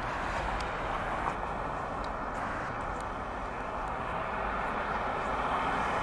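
Steady rushing noise of distant road traffic, growing slightly louder in the second half.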